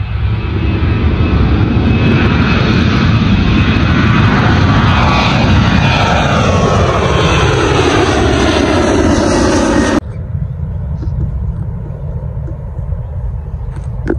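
Boeing 737-800 twin CFM56 turbofan engines at take-off power as the jet climbs out overhead. The sound is loud, with tones sliding down in pitch as the plane passes. It cuts off abruptly about ten seconds in, leaving a quieter low rumble.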